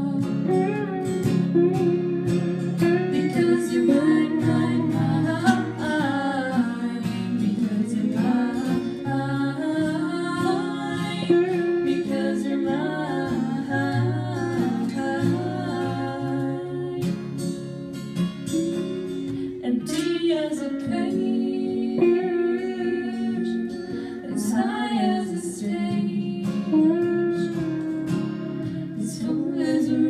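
Live acoustic performance of a song: women singing to strummed acoustic guitars, with an electric guitar accompanying.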